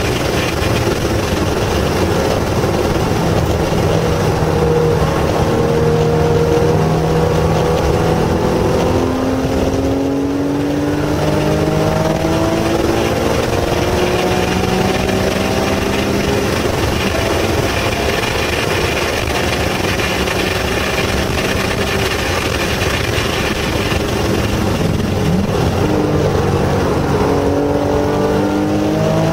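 Porsche 911 GT3 RS flat-six engine heard from inside the cabin at full throttle on a race track. The pitch climbs steadily, breaks at a gear change and climbs again, then falls with quick blips near the end as the car brakes and downshifts for a corner.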